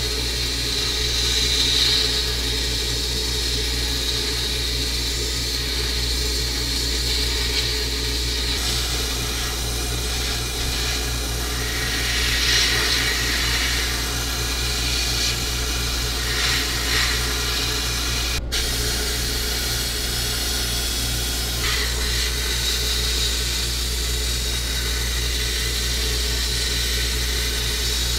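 Abrasive blasting in a blast cabinet: the blast gun's jet of air and grit hisses steadily against the nutcracker's steel parts, swelling and easing as the gun moves, over a steady low hum. The hiss cuts out briefly once, a little past the middle.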